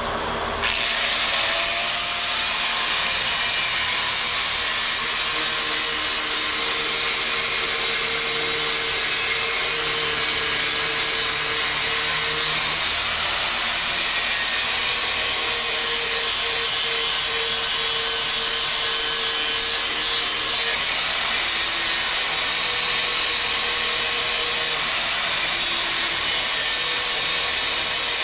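Hand-held power grinder grinding the steel blades of a riding lawnmower to sharpen them in place. It starts up about a second in and then runs steadily as a loud, high grinding whine that shifts slightly in pitch a few times.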